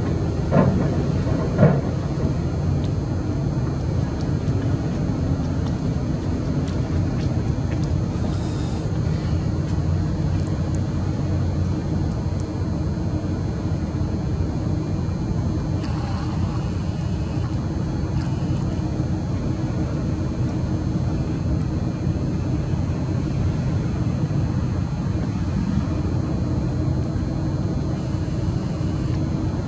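Steady low mechanical hum, with two short clicks in the first two seconds.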